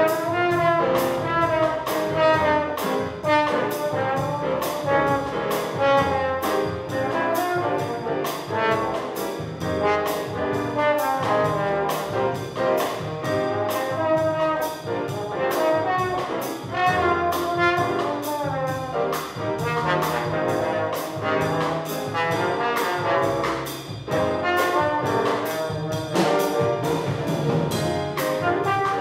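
Small jazz ensemble playing: horns carrying the melody over piano, upright bass and a drum kit keeping a steady cymbal beat.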